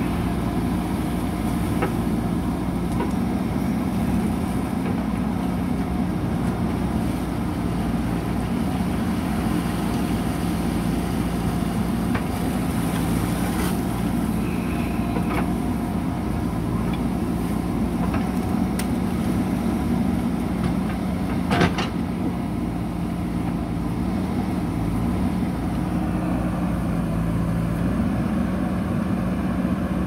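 A JCB 3DX backhoe loader's diesel engine runs steadily while the backhoe arm digs and dumps soil. A single sharp knock sounds a little over two-thirds of the way through.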